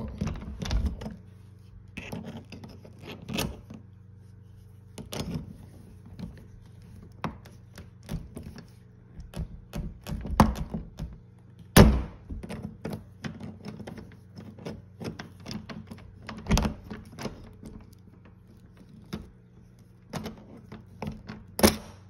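Irregular metal clicks, taps and knocks from hand tools prying at a doorknob's lock cylinder and its peeled-back metal shell as pieces are worked loose, the loudest knock about halfway through.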